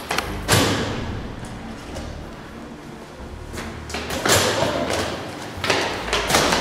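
Heavy thumps and bangs of a metal door with a push bar being shoved and flung open, one about half a second in, another around four seconds, and a cluster near the end.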